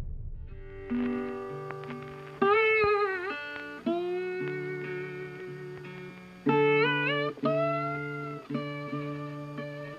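Guitar music: plucked notes, several sliding or bending in pitch, over a repeated low bass note.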